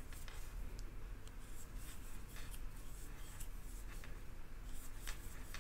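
Crochet hook drawing lace yarn through stitches as double crochets are worked: soft scratchy rubbing with scattered light ticks.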